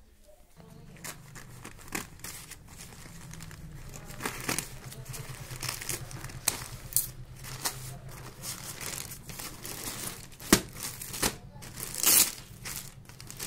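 Plastic courier mailer crinkling as it is cut open with scissors, then a clear plastic-wrapped package crinkling as it is handled. The sound is irregular rustling and crackling with sharp snaps, the loudest near the end.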